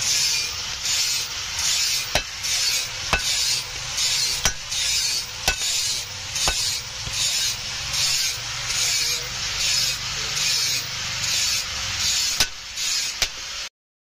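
Rhythmic rasping strokes of hand abrasion on a steel cleaver blade, about two strokes a second, with a few sharp clicks between them. It stops abruptly near the end.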